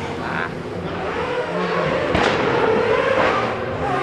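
Rally car engine revving hard and climbing in pitch under acceleration, with two sharp cracks about two and three seconds in.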